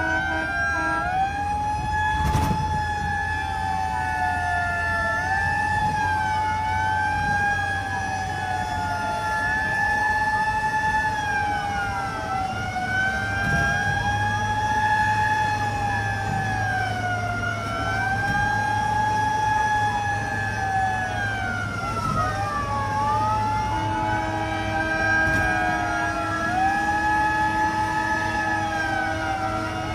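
Several emergency vehicle sirens, fire trucks responding to a fire, wailing at once. Their pitches rise and fall out of step with one another over a steady low engine drone.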